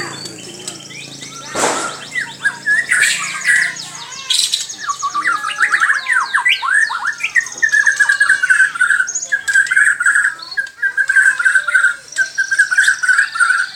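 A white-rumped shama (murai batu) singing a fast, varied song of chirps and whistles, which runs into a long rapid trill from about halfway in. There is one sharp click about two seconds in.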